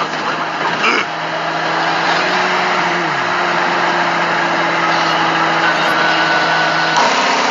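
A semi truck's engine running steadily: an even, constant hum with a held low tone, and a brief falling tone about three seconds in.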